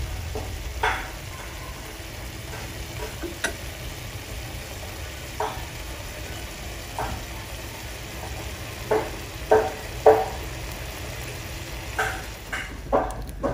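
Thick fish-braising sauce bubbling in a pan on a gas burner, with irregular popping plops as bubbles burst over a low steady hum. The sauce is reducing to a sticky glaze.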